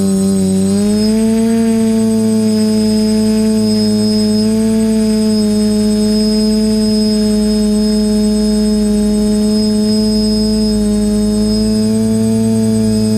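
TBS Discovery quadcopter's motors and propellers humming at a nearly steady pitch in flight. The pitch dips at the start and climbs back within about a second and a half, as the throttle changes.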